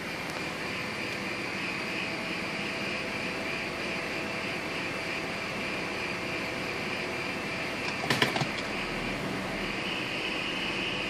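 BMW E46 making a steady mechanical hum with a high-pitched whine running through it, and a short burst of clicks about eight seconds in: the strange noise the owner is trying to identify.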